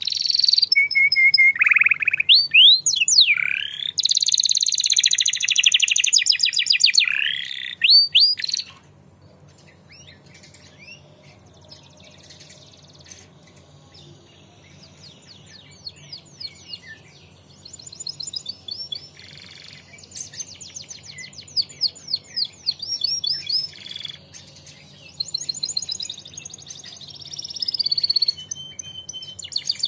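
Domestic canary singing: fast rolling trills, chirps and whistled notes, loud and dense for the first eight or nine seconds, then quieter, scattered notes, with the song building again over the last ten seconds or so.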